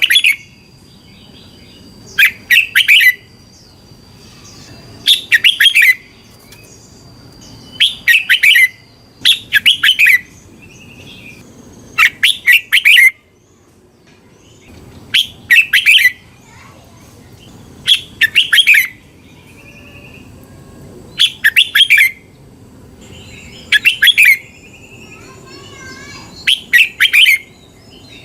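Red-whiskered bulbul singing: short, loud chirping phrases, each under a second, repeated about every two to three seconds.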